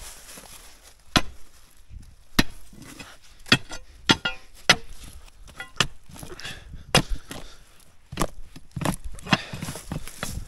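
A hand hammer striking again and again. The sharp knocks come irregularly, roughly one a second, a few of them closer together.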